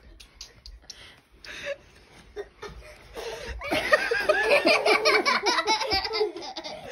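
Loud laughter breaking out about halfway through and continuing in quick bursts, after a few short quiet clicks.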